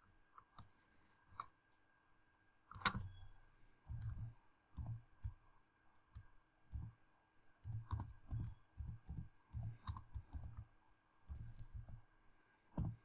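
Faint typing on a computer keyboard: irregular keystrokes, several a second, each a short click with a dull thud, with one sharper click about three seconds in.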